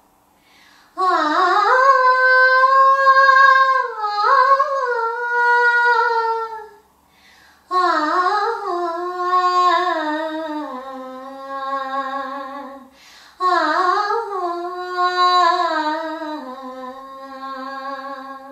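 A woman singing solo with no accompaniment, in three long phrases full of sliding ornaments on held notes, the melody stepping down toward the close of the later phrases.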